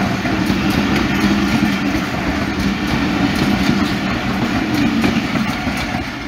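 Pakistan Railways passenger coaches rolling past close by: a steady rumble of steel wheels on the rails, with scattered clicks over the rail joints, easing slightly near the end.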